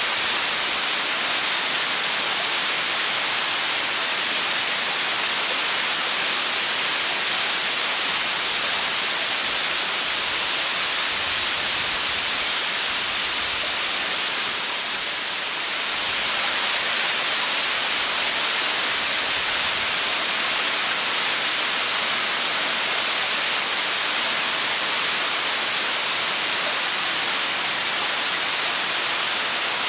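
Tall, narrow waterfall pouring down a rock cliff: a steady, hissing rush of falling water that dips slightly for a moment about halfway through.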